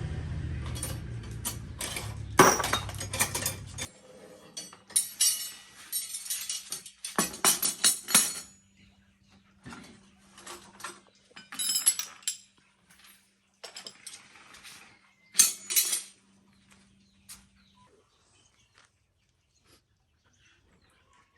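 Small tractor engine running steadily, then cut off about four seconds in, followed by a string of sharp metallic clinks and clatters from tools and metal parts being handled.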